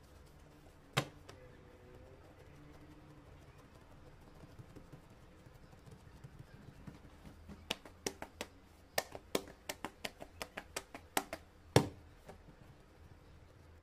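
Fingertips pressing and dimpling a round of flatbread dough on a bamboo cutting board. There is one sharp tap about a second in, then a quick run of about fifteen light clicks and taps in the second half, with the loudest near the end.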